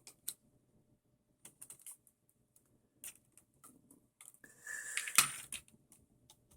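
Scattered light clicks and taps of a flathead screwdriver and small metal parts being worked on an RC buggy's motor and gear assembly, with a brief busier run of clicks and scraping a little before the end.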